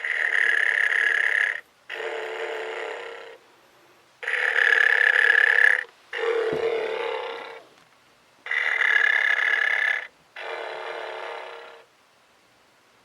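Electronic snoring from a vintage battery-powered snoring teddy bear's sound box: three cycles of a louder buzzy snore followed by a softer breath, each part about a second and a half long, played through a small, tinny speaker. A brief low knock sounds about halfway through.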